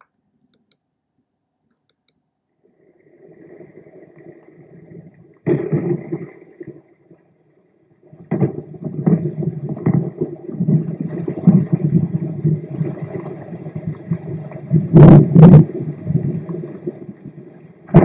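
Thunderstorm sound effect: faint rumbling, then a sudden burst of low thunder about five seconds in. Continuous rumbling follows from about eight seconds on, with two sharp cracks near the end.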